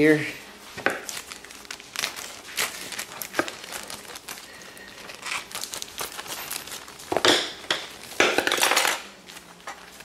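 Plastic parts bag crinkling as it is handled and cut open with scissors, with scattered small clicks and two louder bursts of crinkling about seven and eight seconds in.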